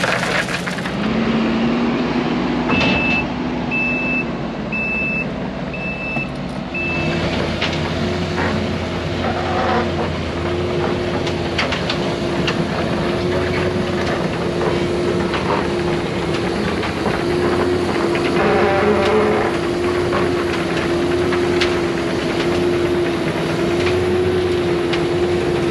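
Heavy construction equipment with diesel engines running steadily. A few seconds in, a reversing alarm beeps five times, about once a second.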